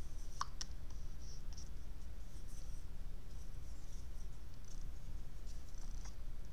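Small watercolour brush stroking over paper: a faint scratchy brushing, with two light clicks shortly after the start and another near the end, over a steady low background rumble.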